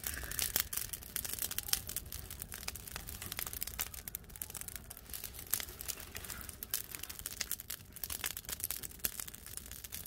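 Newly lit wood fire crackling in a traditional agungi firebox: a dense, irregular run of sharp snaps.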